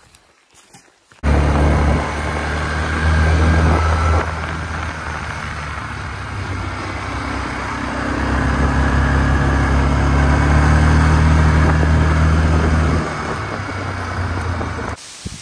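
ATV engine running at riding speed along a gravel road, heard from the quad itself, with wind and tyre noise. It cuts in abruptly about a second in, eases off in the middle, swells again and drops away near the end.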